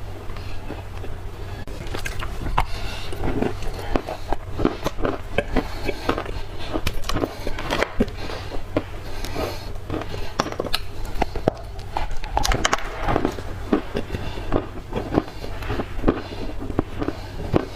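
Someone biting and chewing dry black clay: crisp crunches and cracks at an irregular pace, over a steady low hum.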